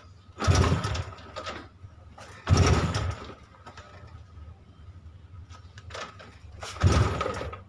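Honda EX5 Dream single-cylinder four-stroke engine being kicked over three times with the throttle wide open and a compression gauge in the plug hole, turning over without firing; each kick lasts about a second. The kick is very stiff, a sign of high cranking compression, which reads about 200 psi on this modified engine.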